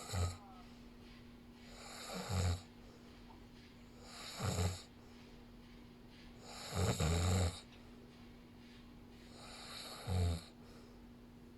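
A sleeper snoring: five snores about two to three seconds apart, the longest about seven seconds in.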